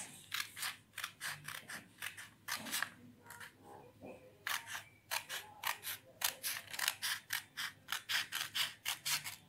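Small red-handled scissors cutting through a sheet of white paper: a long run of quick snips, about four a second, with a short pause about three seconds in.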